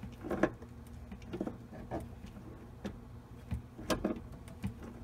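Pump pliers working the metal coupling nut of a faucet supply hose loose from the angle stop valve: a string of irregular light metal clicks and taps as the jaws grip, slip and turn the nut.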